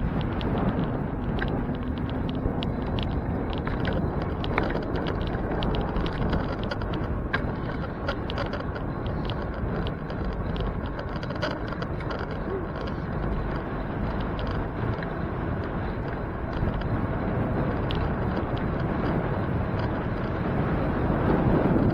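Riding noise from a moving bicycle: a steady low rumble of wind and tyres, with frequent small rattling clicks.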